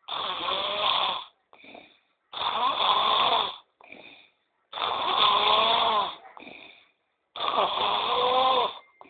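A sleeping man snoring: four long snores about two and a half seconds apart, each with a wavering, voice-like pitch and each followed by a short, fainter breath.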